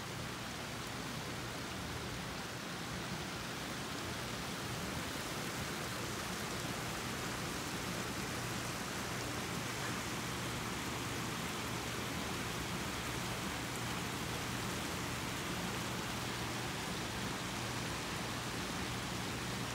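Steady rush of flowing river water, an even hiss that holds at one level throughout.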